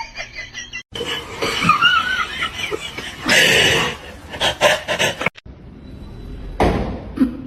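People laughing, in short pieces broken by abrupt cuts.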